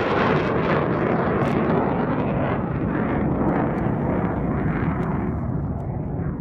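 Panavia Tornado jet's twin RB199 turbofans, loud, passing and moving away: a deep rumble that slowly fades as its higher hiss drops away.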